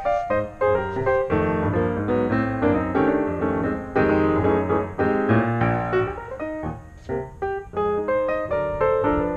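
Background piano music: a quick run of notes over a steady bass line.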